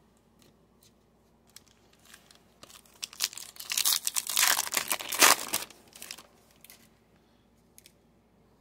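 A trading card pack wrapper being torn open and crinkled by hand, in a few seconds of crackling that starts about two and a half seconds in. A few light clicks of the cards being handled follow near the end.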